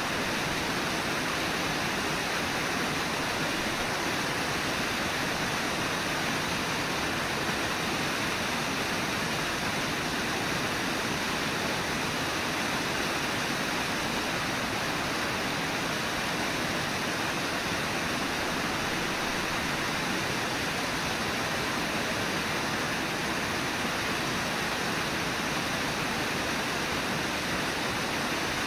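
Steady rush of river water pouring over Brooks Falls, an even, unbroken roar.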